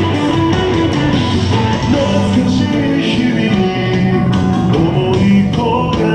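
A rock-style anime song played loud for a dance battle, its key lowered.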